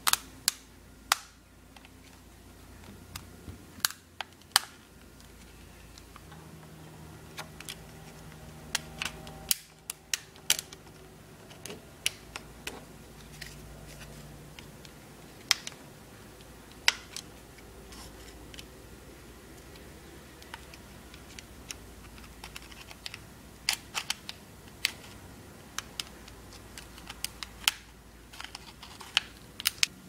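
Irregular sharp clicks and taps of a flat metal prying tool working around the edge of a 1st-generation iPod Nano's metal case as it is prised open, with handling of the player between them.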